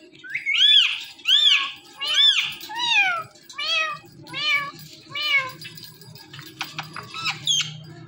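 Indian ringneck parakeet imitating a cat's meow, about seven meows in a row, each rising and then falling in pitch. A few short, sharp calls follow near the end.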